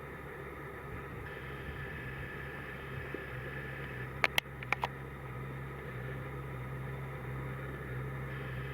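Harvest machinery running steadily, a low engine drone with a faint steady whine, growing slightly louder after about three seconds. Four sharp clicks come in quick succession about four to five seconds in.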